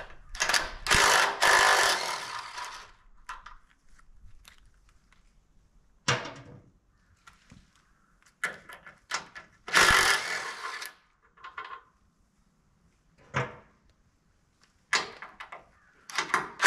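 Cordless impact driver hammering in two bursts of a second or two each, about half a second in and again around ten seconds in, backing out bolts on a boom lift's bucket bracket. Short knocks of tool and metal come between the bursts.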